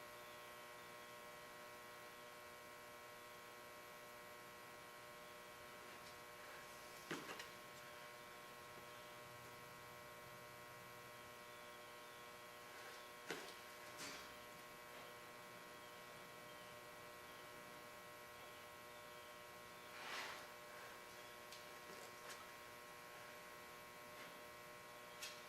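Near silence with a steady electrical hum. A few faint, brief scrapes come through, a plastic spreader working body filler that is starting to set.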